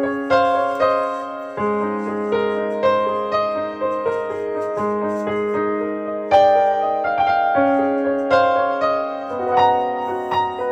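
Background piano music: a gentle melody of single notes over long held low notes.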